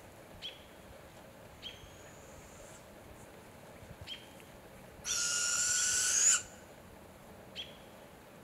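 Young barred owl giving one loud, raspy, hissing screech about a second and a half long, midway through: the food-begging call of a fledgling barred owl. A few short, faint chirps come before and after it.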